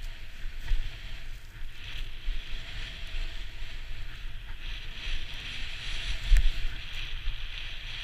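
Snowboard riding through deep powder: the hiss of the board through the snow swells and fades with the turns over a steady low rumble of wind buffeting the body-mounted camera's microphone, with a brief thump a little past six seconds in.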